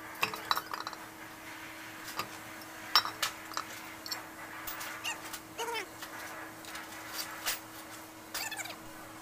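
Metal tools clicking and clinking against steel as the clutch and flywheel area of a truck's diesel engine is worked on by hand, with a few short falling squeaks and a faint steady hum underneath.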